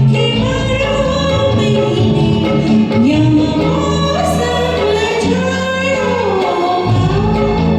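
Hindi film song sung live over a karaoke backing track: held, gliding vocal lines over steady instrumental accompaniment.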